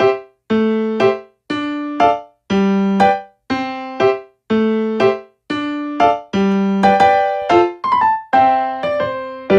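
Background music: a piano or electric-piano melody of separate struck notes, each dying away, at an even moderate pace.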